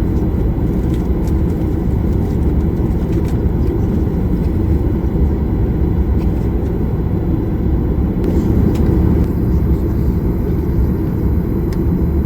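Steady low rumble of a vehicle in motion heard from inside, with a few faint ticks.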